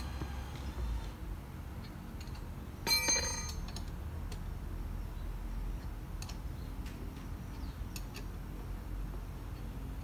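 A three-jaw gear puller being worked on a tapered roller bearing: faint scattered metal clicks as its forcing screw is turned, and one loud ringing metal clink about three seconds in.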